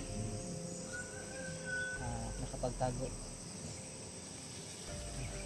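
Insects trilling steadily in a continuous high note, with a short high whistle about a second in.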